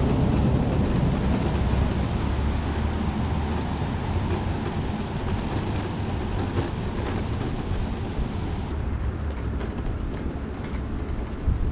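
Electric mobility scooter rolling along rough, cracked asphalt: a steady rumble from its small tyres and frame, with a louder bump near the end.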